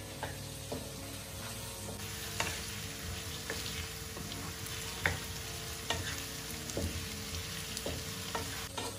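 Diced potatoes, onions and tomatoes sizzling in oil in a nonstick wok while a wooden spatula stirs them, scraping and knocking against the pan now and then. The sizzle grows stronger about two seconds in.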